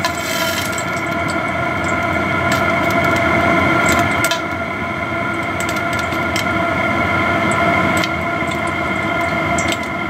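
Vevor diesel air heater running with its blower fan's steady whine over a rushing burner noise, with scattered irregular clicks. It is burning rough and smoking heavily, which the owner takes for water in the fuel.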